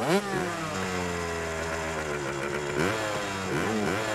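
Dirt bike engines revving: a sharp rev at the start that falls away slowly, then several quick blips of the throttle near the end.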